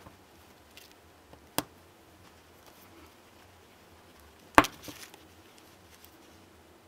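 Small plastic 2.0 mm pin-header connector being cut in two: a light click about a second and a half in, then a single sharp snap about four and a half seconds in as the plastic cuts through, followed by a few faint ticks.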